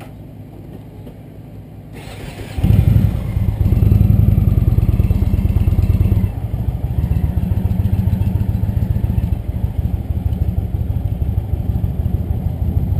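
Cruiser motorcycle engine: a faint low rumble, then about two and a half seconds in it comes up loud and runs hard for a few seconds before easing to a steadier, lower run as the bike rides off.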